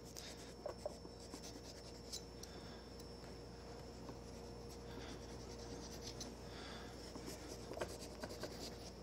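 Faint scratching and scraping of a small carving knife cutting into a cantaloupe's rind and flesh, with a few soft clicks.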